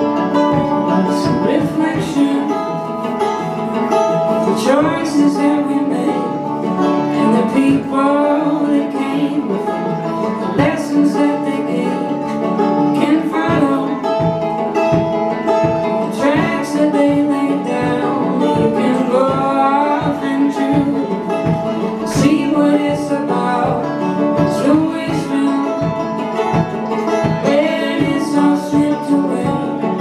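Live folk band playing an instrumental break on acoustic guitar, banjo and a second guitar, with steady strumming under picked lead lines and some sliding notes.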